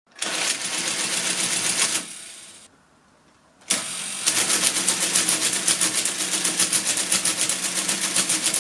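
Friden SBT10 mechanical calculator's exposed lever and gear mechanism running through its cycle, a loud rapid clatter of clicks. It stops about two seconds in and dies away, then starts again near the four-second mark with an even, rapid rhythm.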